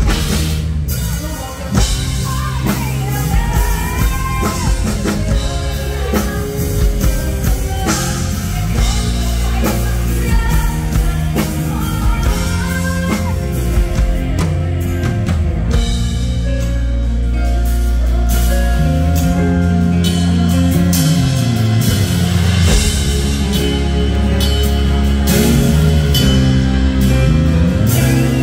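A Thai luk thung song played live by a full band through a stage PA, with a female lead singer over a steady drum-kit beat.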